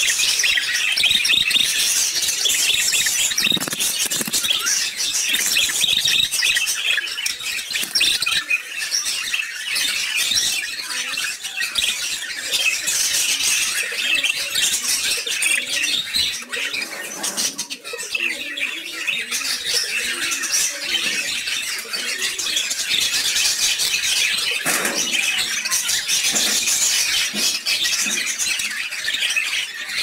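Caged budgerigars chattering and warbling, a dense, continuous stream of high chirps and squawks.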